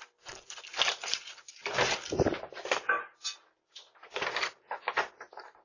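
Irregular knocks, scuffs and rustles picked up by a doorbell camera's microphone, typical of hurried footsteps at a front door.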